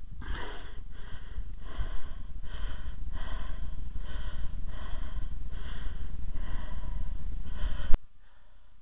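A cyclist panting hard, about one and a half breaths a second, worn out from a long uphill mountain-bike climb. Under it is a low rumble of wind and handling on the microphone, and the sound cuts off suddenly near the end.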